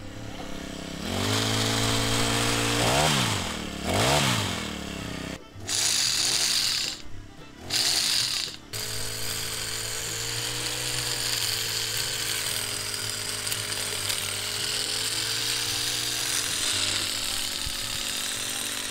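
Petrol pole hedge trimmer's small engine running. It is revved up and down in two quick blips with a couple of short drops in the first half, then held at a steady high speed, wavering slightly, as the blade cuts.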